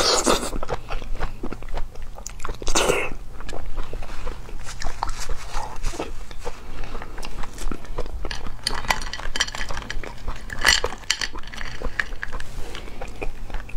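A person chewing and biting Australian lobster meat, close to the microphone: wet mouth sounds with irregular crunchy clicks.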